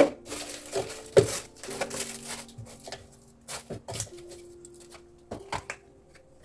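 Scattered clicks, knocks and rustles of objects being handled, the loudest knock about a second in, over soft held notes of background music.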